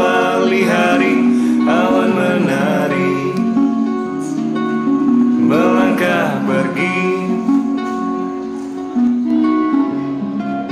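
Background music led by plucked guitar, with a melody line that slides in pitch now and then.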